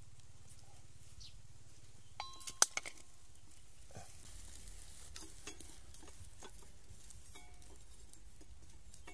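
Hand-handling sounds from setting a bamboo-and-knife snake trap: a quick cluster of clicks with one sharp clink about two and a half seconds in, then scattered small ticks and rustles in dry bamboo litter.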